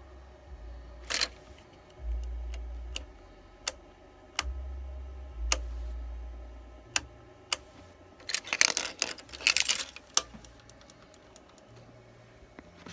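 2004 Suzuki GSX-R 1000's starter solenoid clicking: single sharp clicks every second or two, then a burst of rapid chattering clicks. The engine does not crank, with the bike's electrics dimming out, though the battery is full.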